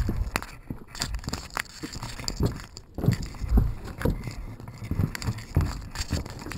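Irregular knocks, scrapes and rustles of a string-tied camera mount being handled, with the string and mount rubbing and bumping right at the camera's own microphone.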